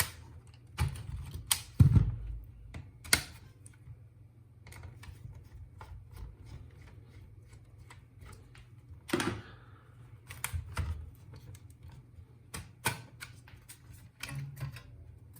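Scattered clicks and light knocks of hands handling an HP EliteBook 8470p laptop's plastic case, with a few heavier knocks about two seconds in and again near the middle.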